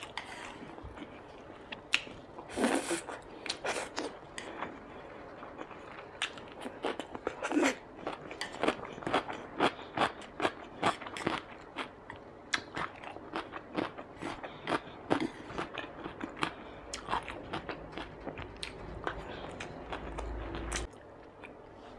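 Close-miked chewing: irregular wet mouth smacks and clicks, a few a second, as a person eats.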